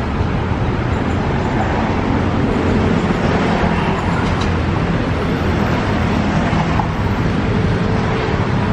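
KRL electric commuter train running into the station: a steady rumble of wheels on rail with motor hum, slightly louder in the middle as it draws alongside.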